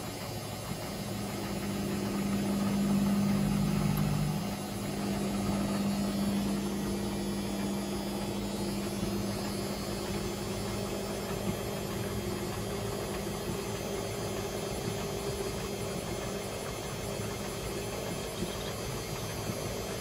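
ATLANT 45Y82 front-loading washing machine on its final spin, set to 400 rpm: the motor hums steadily as the drum spins the laundry. About four seconds in, one of the hum's tones drops out and the sound gets a little quieter, then runs on evenly.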